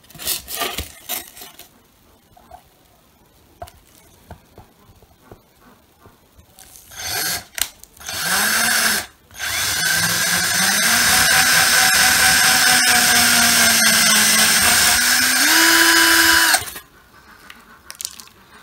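Cordless drill-driver drilling a small hole: a few light clicks of handling, two brief starts of the motor, then about seven seconds of steady running under load. Near the end the pitch steps up, and the drill stops suddenly.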